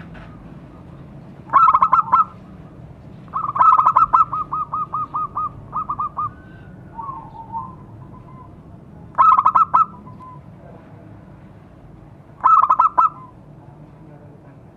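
Zebra dove (perkutut) singing its cooing song in short bursts of quick, evenly spaced notes. There is a burst about two seconds in, a longer run of about a dozen rapid notes around four to six seconds in, and two more short bursts near ten and thirteen seconds.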